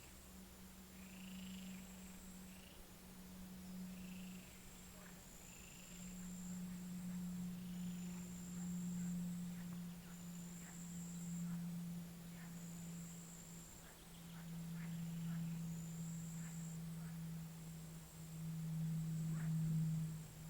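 A pond frog chorus: a continuous low croaking drone that swells and fades, louder near the end, with short higher calls in the first few seconds and scattered brief chirps later. A thin high tone comes and goes throughout.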